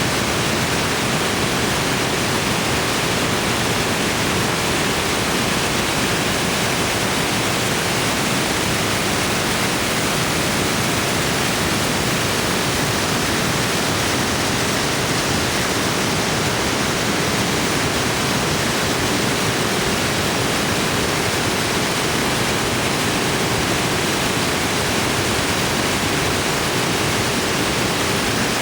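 Waterfall pouring: a steady, even rush of falling water with no breaks.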